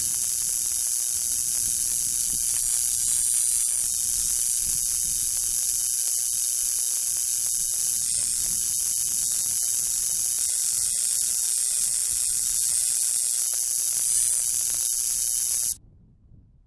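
Tesla coil discharge: a loud, steady high hiss of sparks streaming from the figure's sword tip and the tree's branches. It cuts off suddenly about a second before the end.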